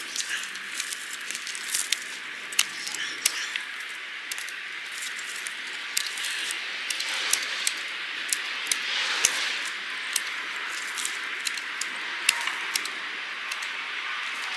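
Hand pruning shears snipping pomegranate branches: a scatter of sharp, irregular clicks and snaps over a steady hiss, with stems rustling as they are handled.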